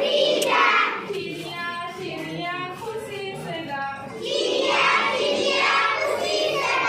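A group of children singing a Hindi rhyme together. The singing drops to a quieter passage from about one to four seconds in, then the group comes back in louder.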